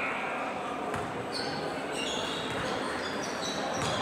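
Gym ambience during a basketball game: a steady hubbub of the hall, with several short, high squeaks of sneakers on the court from about a second and a half in, and a faint knock or two.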